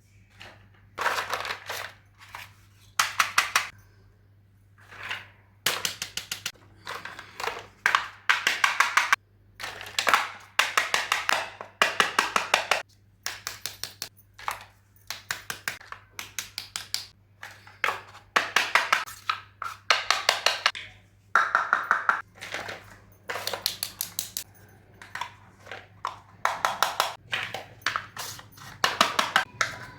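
Small plastic toy pieces and packaging being handled, in repeated short bursts of rapid clicking and crinkling with brief pauses between them.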